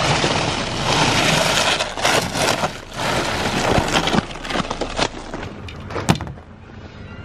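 Ice scraper scraping a layer of glaze ice off a car's windshield and hood, the ice cracking into sheets that slide off. Long continuous scraping strokes fill the first three seconds or so, then scattered clicks and knocks of ice pieces follow, with one sharp knock about six seconds in.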